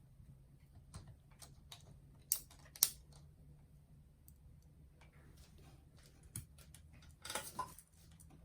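Light clicks and taps of a mini boombox's small plastic parts being handled during disassembly, with two sharper clicks about two and a half seconds in and a short scraping rustle near the end.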